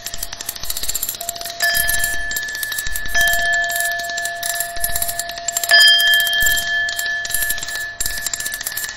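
Experimental noise soundtrack: steady ringing tones held over a constant crackle of clicks. New tones strike in about one and a half, three and six seconds in, the one near six seconds being the loudest.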